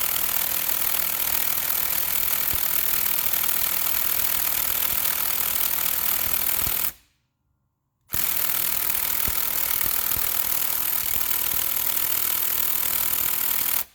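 Cordless impact wrench hammering steadily at its level 2 setting (about 75 to 80 ft-lb) against a 3/8-inch drive ratchet locked in the off position, in two long runs with a short stop about seven seconds in. The ratchet's pawl holds and does not slip.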